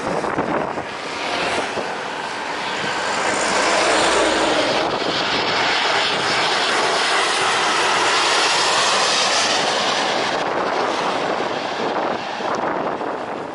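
Jet airliner on landing approach, its engines making a loud, steady rushing noise that swells as it passes close and eases off near the end.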